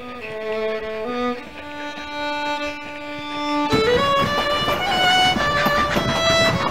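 Background music: a slow melody of held notes on a single instrument, joined about four seconds in by a louder, fuller band.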